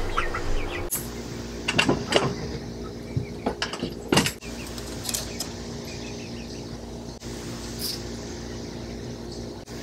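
A few sharp clicks from hand tools and hardware as a rope is worked with linesman's pliers: a cluster about two seconds in and a louder knock about four seconds in, over a steady hum.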